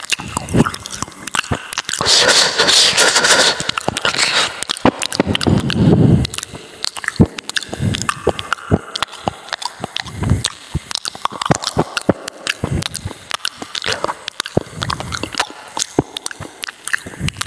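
A chocolate Labrador chewing and biting into raw meat and vegetables: irregular crunching and clicking of the jaws, loudest a couple of seconds in.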